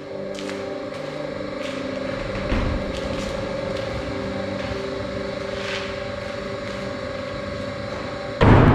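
A steady droning hum, then near the end a heavy door slams shut with one loud boom that rings on as it fades.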